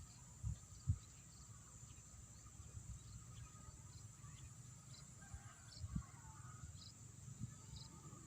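Rice-field ambience: insects keep up a steady high-pitched trill over a lower steady buzz, with short bird-like chirps scattered through. A few soft low thumps come near the start and about six seconds in.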